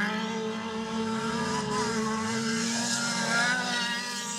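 Several autocross racing buggies' engines running and revving through a dirt-track corner, some engines rising and falling in pitch as they pull away over a steadier drone.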